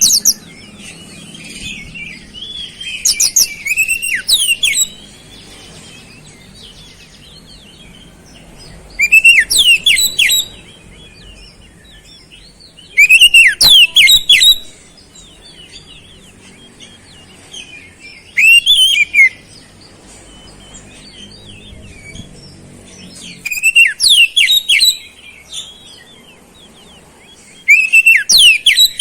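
Oriental magpie-robin singing in loud bursts of rapid, sweeping whistled phrases, each a second or two long and coming every four or five seconds. The song is filled with mimicked flowerpecker calls.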